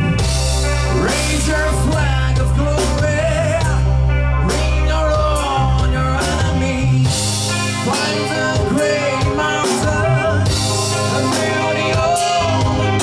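Live rock band playing: a lead melody that slides and wavers over a sustained bass line and drums.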